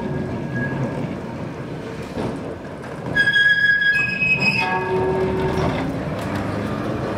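Vintage electric tram rolling slowly past, its steel wheels rumbling on the rails. About three seconds in, the wheels break into a loud squeal on the curve that lasts about two and a half seconds and steps from a high tone down to lower ones.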